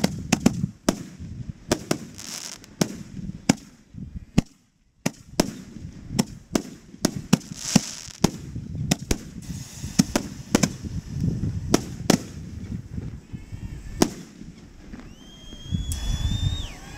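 Aerial fireworks bursting in quick succession: sharp bangs, several a second at times, over a continuous low rumble. Near the end a long rising whistle sounds over them.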